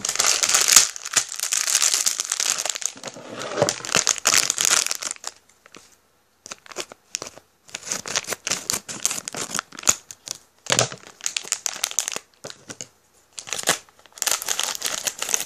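Plastic blind-bag wrapper crinkling and tearing as it is pulled open by hand. The crinkling runs almost without a break for about the first five seconds, then comes in shorter spells after a brief pause.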